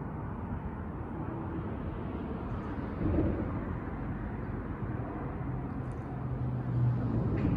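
Steady outdoor background rumble, with a low hum that swells toward the end.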